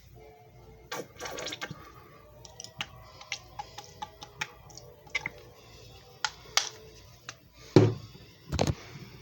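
Irregular clicks and knocks of a JFJ Easy Pro disc repair machine being handled, over a low steady hum, with two louder thumps near the end.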